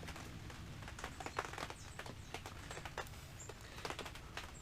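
Scattered light clicks and scrapes of metal brake pads being handled and set into a motorcycle's rear brake caliper, with a steady low hum underneath.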